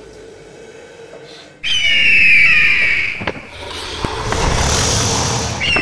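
Creature sound effect for a CGI dragon: a loud, shrill, wavering screech starts about a second and a half in. A loud rushing noise follows, and a second screech comes near the end.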